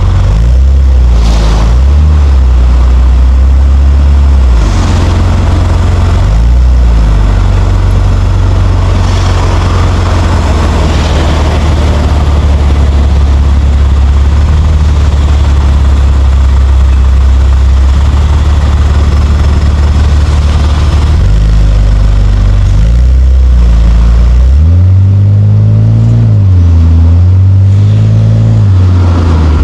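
Nissan Skyline R34 GT-T's turbocharged straight-six engine running while driving, holding a steady note for most of the time. In the last third it revs up and drops back a few times, as when accelerating through the gears.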